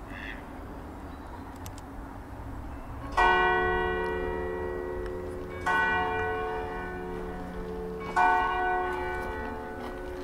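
A church bell striking three times, about two and a half seconds apart, each stroke ringing on and slowly fading.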